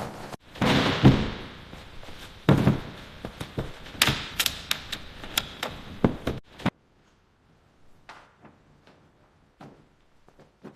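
Irregular clunks, knocks and taps of a car's fender panel being handled and fitted into place, with a few sharper clicks. About six and a half seconds in they stop, leaving only a few faint ticks.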